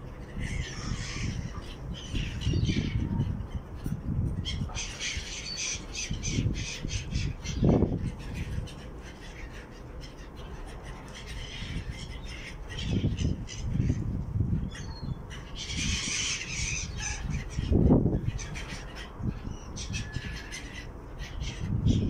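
A flock of gulls calling overhead, with harsh squawks coming again and again and overlapping. Gusts of wind buffet the microphone with low rumbles, loudest about eight seconds in and again near eighteen seconds.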